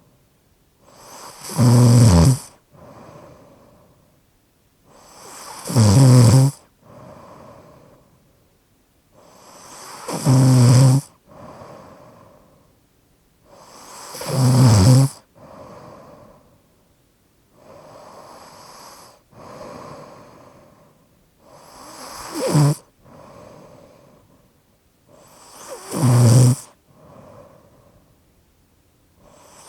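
A person snoring with a slightly obstructed airway. Loud snores come about every four seconds, each swelling to a peak and cutting off, with softer breaths between them. Midway through, a couple of breaths pass with no loud snore.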